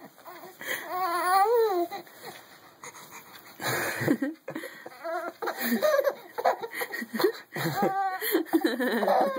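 Baby laughing and squealing while being tickled. There are several bouts of high, wavering squeals and breathy laughs.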